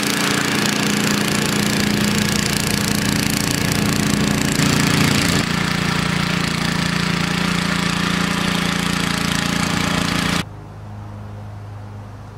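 Small gasoline engine of a rear-tine rototiller running steadily as it churns soil. About ten seconds in, it drops suddenly to a quieter steady engine hum.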